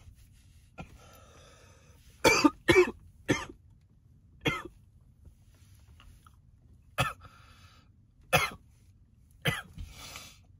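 A man coughing in a fit of about eight coughs, three coming close together about two to three seconds in, with raspy breathing between them. It is a smoker's coughing on thick blunt smoke in a hotboxed closet.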